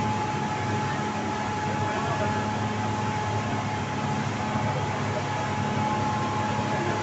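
Twin Honda four-stroke outboard motors running at speed, a steady drone with a constant whine above it, mixed with the rush of wind and water past the speedboat.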